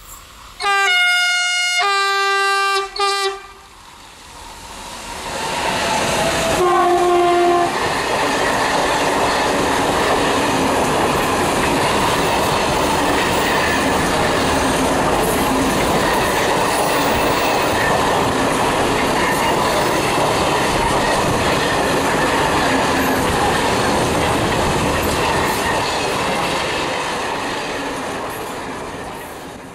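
Horn of a Renfe class 253 (Bombardier Traxx) electric locomotive: two long blasts, then a short toot. About seven seconds in comes another, slightly lower blast as the locomotive passes. A long container freight train's wagons then roll past with a steady clickety-clack of wheels over rail joints, fading near the end.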